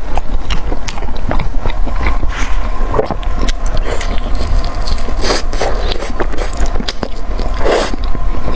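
Close-miked eating sounds: irregular crunching and wet chewing clicks from a person biting and chewing food, over a steady low rumble.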